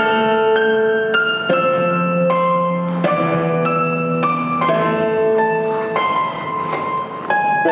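Instrumental free-skate program music with held notes, the chord changing every second or so.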